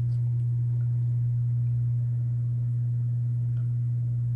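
A steady low hum: one unchanging tone with no rise or fall, and a couple of faint ticks over it.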